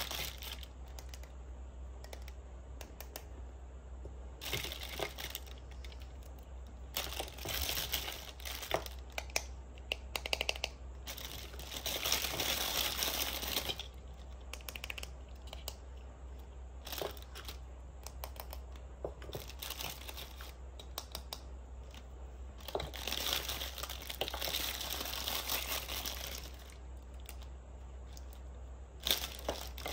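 Clear plastic bag crinkling in several separate bursts as small plastic toy-kitchen pieces are pulled out of it, with light clicks and taps of hard plastic pieces being handled and set down between the bursts.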